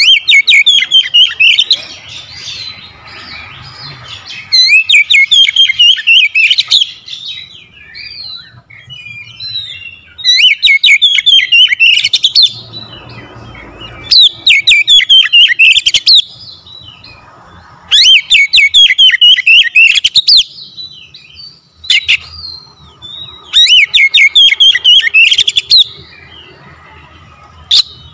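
Oriental magpie-robin singing in loud bursts of rapid, sharp chirping notes, each burst about two seconds long and coming every few seconds, with softer scattered chirps in between.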